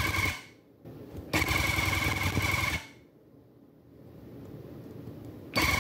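Electric tufting gun running in short bursts as it punches yarn into the tufting cloth, a fast needle rattle under a steady whine. One burst ends about half a second in, a second lasts about a second and a half, and a third starts near the end.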